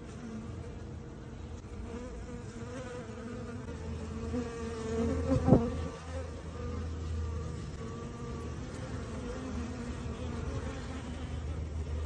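Honeybee swarm buzzing in a steady, wavering hum, with one sharp click about halfway through.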